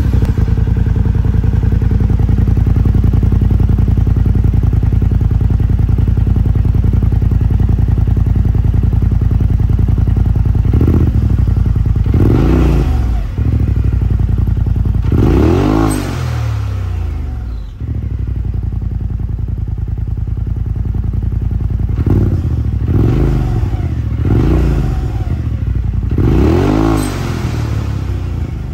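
Polaris RZR Pro XP's twin-cylinder engine heard through a Treal Performance full exhaust, idling steadily just after start-up. From about a third of the way in, it is revved in a series of short throttle blips, each rising and falling in pitch before dropping back to idle.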